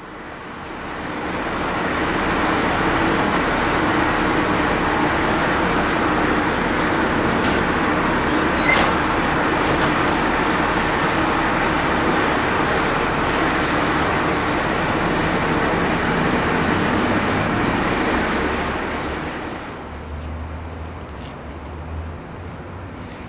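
PCC electric streetcar pulling out of the station, its motors and wheels on the rails making a loud, steady running noise that falls away about twenty seconds in as the car leaves. A brief sharp ring sounds about nine seconds in, and a short hiss follows a few seconds later.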